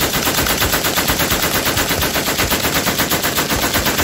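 Browning M1919 belt-fed machine gun firing one long full-auto burst, a rapid, even stream of shots.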